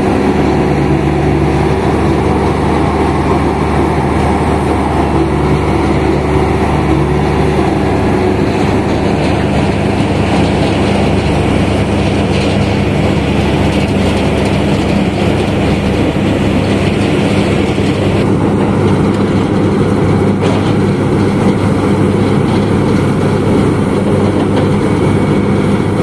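Heavy engines of asphalt road-paving machinery running steadily, a loud continuous engine hum whose tone shifts a couple of times.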